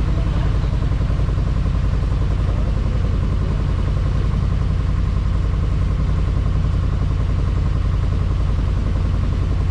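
Tour boat's engine running steadily, a low, even throb with no change in speed.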